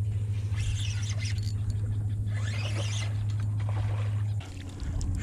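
Electric trolling motor of a kayak humming steadily while holding position on spot lock. About four seconds in its pitch drops a little as the motor changes speed. Short scratchy rustles come over it twice.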